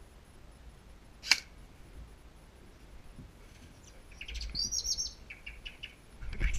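A single sharp shot from an airsoft rifle about a second in, followed by birds chirping a few seconds later.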